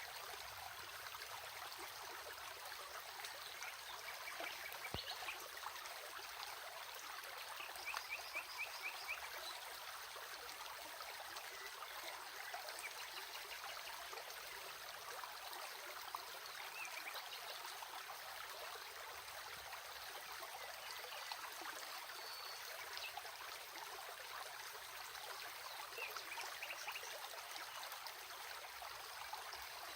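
Stream water running steadily over rocks, with a few brief high-pitched trills rising above it now and then.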